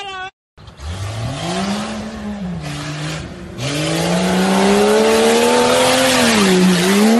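SUV engine revving hard under acceleration: the pitch climbs, eases off about two seconds in, then climbs again and stays high as the vehicle comes close, with tyre and dirt noise growing louder. A brief silent break comes near the start.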